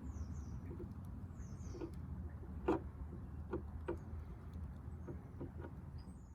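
Plastic-welding iron worked over a cracked plastic air intake: scattered light ticks and scratches over a steady low hum, with a few faint high chirps.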